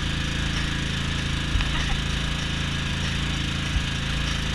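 Small petrol generator engine running steadily as a low, even drone, with two soft knocks, one about a second and a half in and one near the end.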